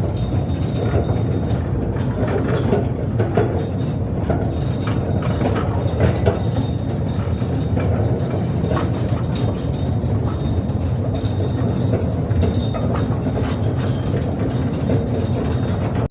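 Narrow-gauge field-railway battery-electric locomotive running with a tipper wagon: a steady rumble with many clicks and rattles of wheels and couplings, and a faint high whine that comes and goes.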